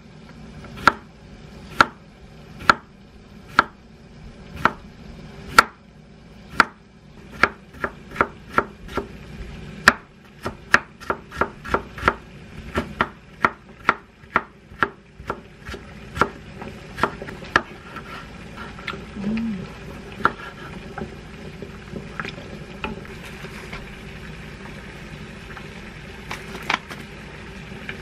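Kitchen knife cutting a cucumber into thin strips on a wooden cutting board: sharp knocks of the blade striking the board, about one a second at first, then quicker at two or three a second. The knocks thin out and grow softer in the last third.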